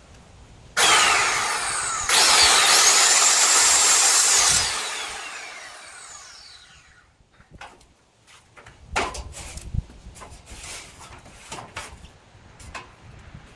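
Skil circular saw started with a sudden loud whine, briefly easing, then running and cutting wood until about four and a half seconds in. The blade then winds down with a falling whine, followed by scattered knocks and clatter of handling the saw and wood.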